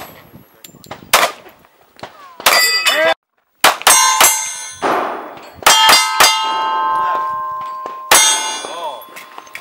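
A string of pistol shots, each hit answered by steel targets clanging and ringing. A quick run of shots a little past halfway leaves a steel plate ringing for about two seconds, and one more shot comes near the end.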